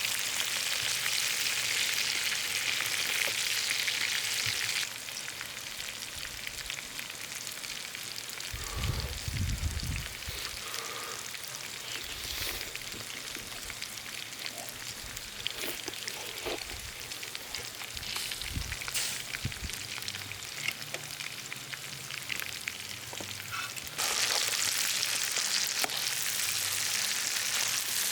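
Food sizzling and frying on a hot griddle, a steady hiss. It is louder for the first few seconds and again near the end, with a quieter stretch between that holds a few low thumps.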